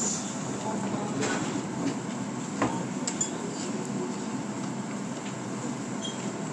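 Restaurant dining room ambience: a steady background din with a few light clinks of tableware, about a second in, again near two and a half seconds and just after three.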